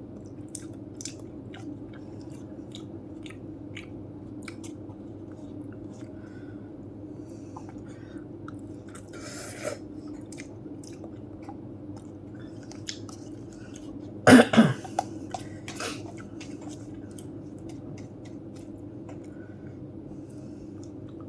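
A person chewing spicy instant noodles with small wet clicks over a steady low hum. About two-thirds of the way through, a short fit of two or three coughs, the loudest sound, brought on by the chilli heat.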